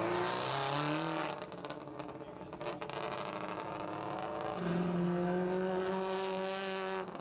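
Car engine accelerating hard. Its pitch climbs, drops at a gear change and climbs again, then holds steady at high revs for the last couple of seconds.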